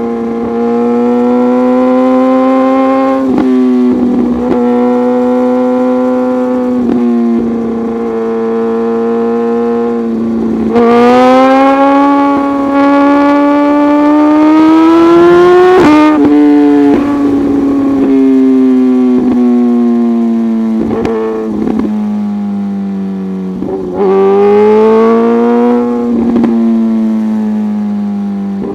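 Suzuki GSX-R1000R inline-four engine breathing through an untuned M4 full exhaust system, pulling hard under way. Its note climbs and dips, with short sharp breaks at each quickshifted gear change. The longest pull rises steadily for about five seconds before a sudden upshift.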